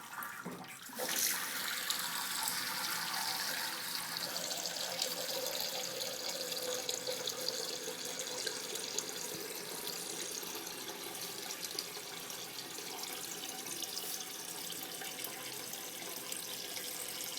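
Water rushing into a toilet tank through the fill valve once the supply is turned on. It starts suddenly about a second in and runs steadily, with a tone in the rush that slides lower over the following several seconds.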